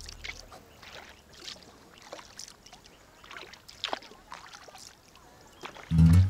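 Kayak paddle strokes in calm water: soft, irregular splashes and drips from the paddle blades. Loud music comes in just before the end.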